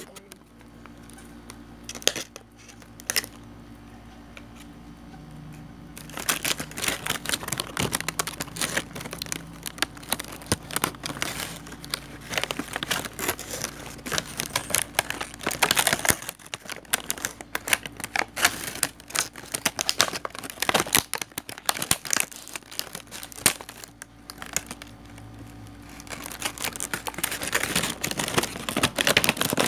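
Paper or plastic packaging crinkling and rustling as it is handled, a dense crackle that starts about six seconds in and pauses briefly a few seconds before the end.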